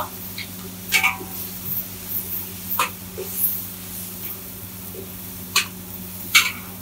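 Long-handled metal ladle knocking and scraping against a large metal wok as spice paste is stirred, with several sharp clinks a second or more apart over a steady low hum.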